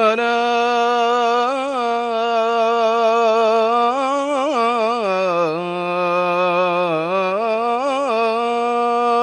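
Male muezzin chanting the Islamic call to prayer (adhan), drawing out the phrase "hayya 'ala" as one long unbroken melismatic line. He mostly holds a steady pitch, with ornamented turns about a second and a half in, around four to five seconds in, and again near the end.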